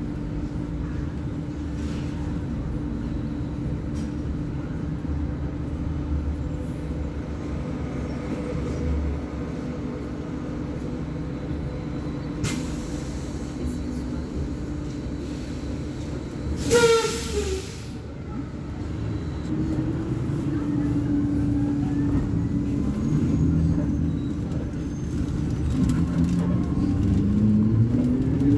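Volvo B58 bus's inline-six diesel engine running steadily, with two short bursts of compressed-air hiss, the louder one about 17 seconds in; from about 20 seconds in the engine note climbs as the bus accelerates.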